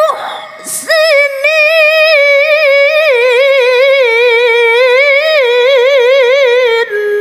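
A woman reciting the Quran in melodic tilawah style: a quick breath, then one long, high held phrase of about six seconds, its pitch wavering in rapid ornaments, which stops just before the end.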